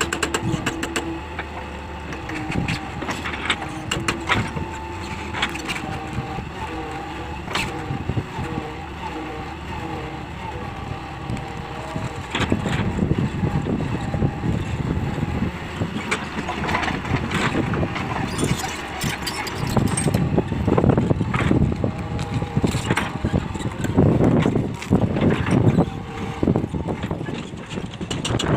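Hitachi 200LC hydraulic excavator's diesel engine running steadily, with frequent sharp knocks and clanks from the machine at work. Heavier low rumbling swells in a few stretches in the second half.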